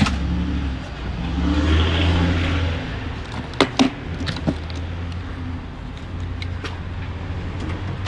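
Hand tools and gear clicking and knocking as they are put away in a work van, with a few sharp clicks about three and a half to four and a half seconds in. Under them runs a steady low vehicle rumble that swells about one to three seconds in.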